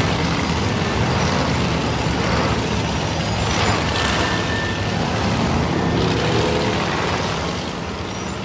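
Several 4400 unlimited-class rock racing cars, 1,000-horsepower machines, with their engines running as they crawl over boulders in a traffic jam on the trail.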